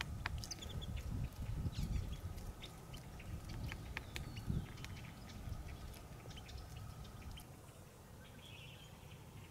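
Outdoor marsh ambience: a fluctuating low rumble with many small scattered clicks and snaps, easing off after about seven seconds, and a faint bird chirp near the end.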